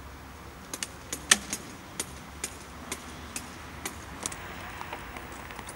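Sharp clicks and clinks of hard parts being handled while firework racks and tubes are set up, about two a second, the loudest about a second in.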